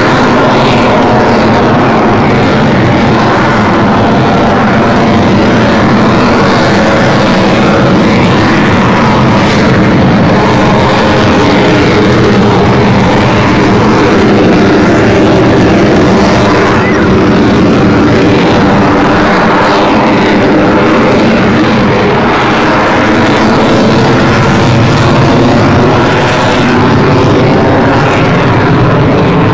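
Jet engines of a twin-engine Sukhoi fighter making loud, continuous noise as it manoeuvres overhead, the tone slowly wavering up and down.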